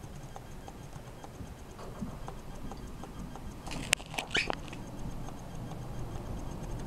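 Handling rumble from a handheld camera moving through a small boat cabin, with scattered light ticks. About four seconds in there is a sharp click, then a brief squeak that slides up and down in pitch.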